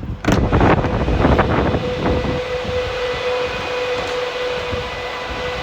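Refrigeration unit on a Mercedes Sprinter fridge van running with the engine on: a noisy, steady mechanical hum with a steady whine that sets in about two seconds in. It is preceded by a short cluster of knocks and rustling.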